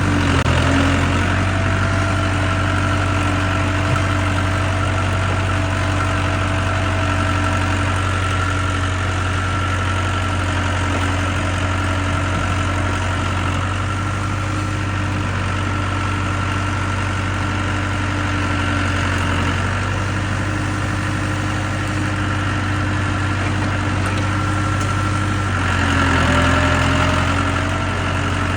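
International 584 tractor engine running steadily at a low, even speed. Near the end its pitch dips for a couple of seconds while it gets louder, then recovers.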